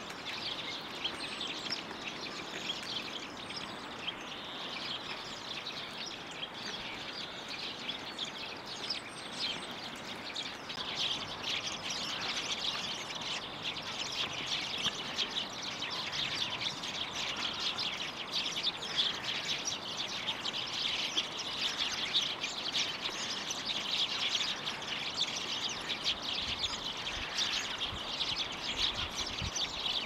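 Many small songbirds chirping and twittering at once, a dense overlapping chatter of short high calls that grows busier and a little louder in the second half.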